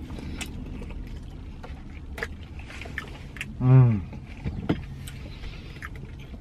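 A man chewing and handling food, with scattered small clicks and rustles over a steady low rumble. About two-thirds through he makes one short hummed 'mmm', followed by a sharp click.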